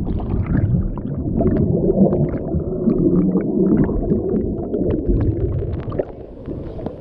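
Muffled rumble of churning water heard with the camera held underwater, with scattered small bubble pops and ticks. It eases a little near the end.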